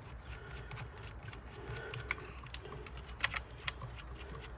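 Light metallic clicks and taps as a socket loosens and lifts off the two guide-bar nuts on a chainsaw's side cover, with a few sharper clicks in the second half.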